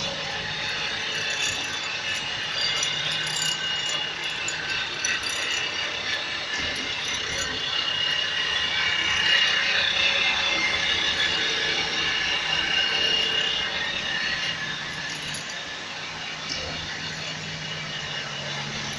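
Granite-cutting machine's motor and saw blade running as it is fed through a cut in stone: a steady hum under a high whine with grinding noise, swelling louder about halfway through and easing off later.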